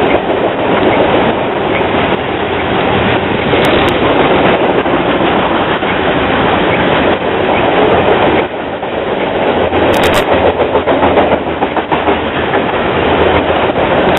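Freight train of coal hopper cars rolling past close by: a steady, loud rumble and clatter of steel wheels on the rails.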